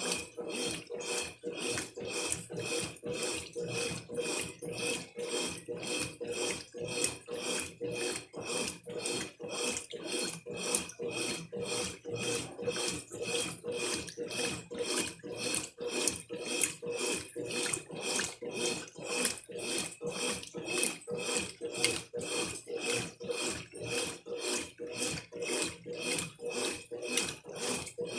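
Brastemp top-loading washing machine agitating a very full load of laundry in water, swishing back and forth in a steady, even rhythm with a faint motor hum under it.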